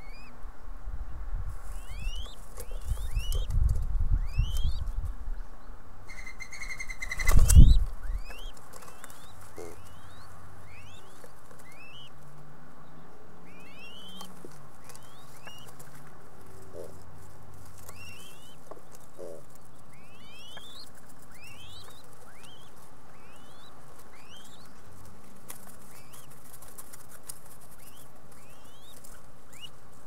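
Mourning dove flapping in to land at the nest: a brief wing whistle about six seconds in, then a loud thump of wings and landing a second later. Short rising bird chirps repeat about once a second throughout.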